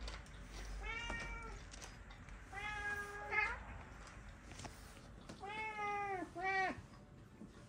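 House cats meowing while begging for food at the table: four drawn-out meows, the last two close together.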